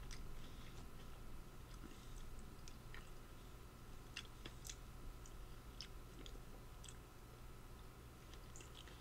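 A person chewing a mouthful of blueberries and blackberries: faint, scattered wet mouth clicks.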